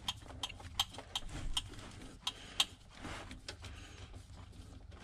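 Faint, irregular clicks and small knocks, about a dozen, as an automatic transmission filter canister is unscrewed by hand off its long threads.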